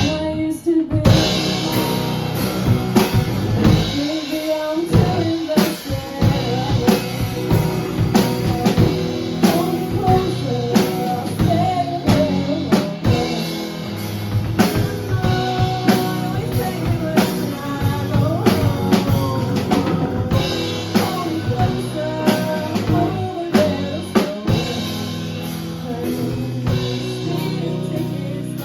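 A song with drum kit, guitar and a singing voice, with a steady beat.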